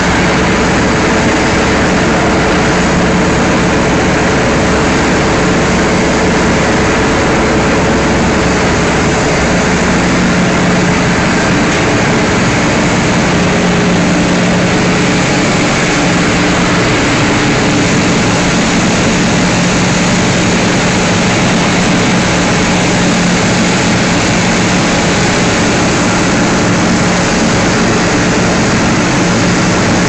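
Plastic film washing line running: a steady drone of motor-driven paddle drums turning in the wash tanks, with a constant low hum and water churning.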